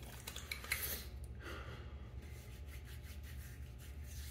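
Hands rubbing aftershave splash onto freshly shaved skin: faint rubbing, with a few soft clicks in the first second.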